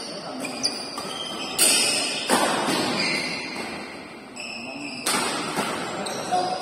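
Badminton shuttlecock struck hard by rackets: loud sharp smacks echoing in a large hall, two in quick succession about a second and a half in and another about five seconds in. Short high squeaks come between the hits.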